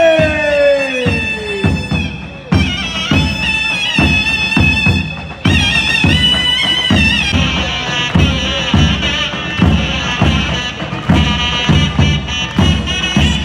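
Loud traditional-style music: a piercing reed wind instrument plays a melody with sliding, bending notes over a regular drum beat.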